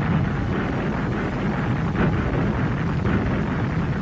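Continuous low rumble with a few faint thumps: the battle noise of anti-aircraft fire and bombing on an old wartime newsreel soundtrack.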